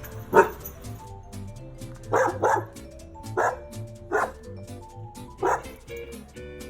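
A dog barking six times in short, separate barks, two of them in quick succession about two seconds in, over background music.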